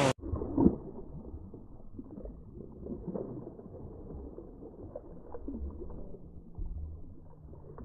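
Muffled low rumble of wind and water heard through a waterproof camera housing, with scattered knocks and splashes from a hooked fish thrashing at the surface beside the kayak. A sharper knock comes just under a second in.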